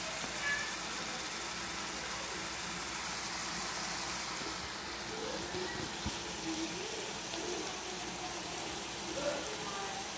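Potato and cucumber pieces sizzling gently in oil in an open steel kadai, a steady hiss. A few faint, short wavering sounds come through in the background around the middle and again near the end.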